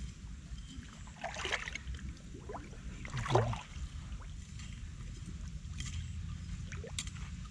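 Water sloshing and splashing around someone wading, with a few brief splashes about a second and a half and three seconds in, over a steady low rumble.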